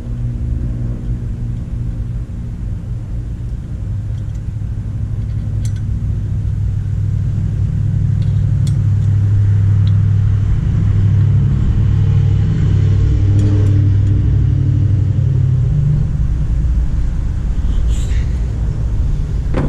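A steady low engine rumble that grows louder through the middle and eases off near the end, with a few faint clicks.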